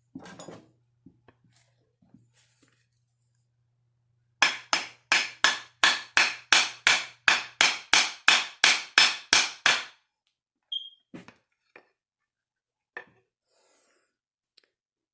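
Hammer blows during an axe rehang: a quick, even run of about sixteen strikes, roughly three a second, followed by a few single knocks.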